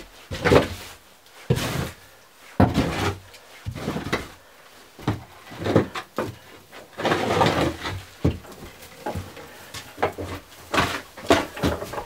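Loose hay being raked and pushed across a barn floor with a long wooden-handled tool: irregular scraping strokes, one every second or two, with sharp knocks of the tool against the floor and boards.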